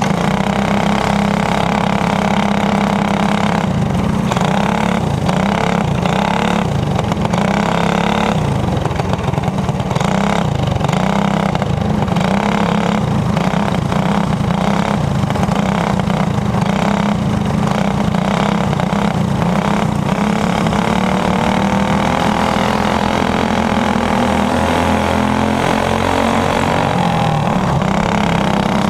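Racing kart engine running hard, its pitch rising and falling over and over as the throttle is opened and lifted, with another kart running alongside.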